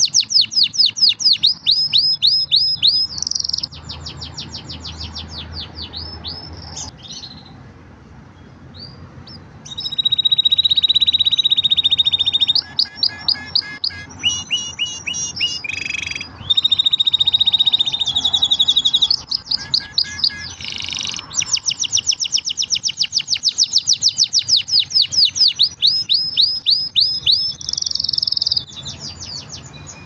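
Green domestic canary singing: long runs of fast repeated high notes, with a quieter stretch of softer phrases between about four and nine seconds in. Twice, about ten and seventeen seconds in, it holds a steady rapid trill for a couple of seconds.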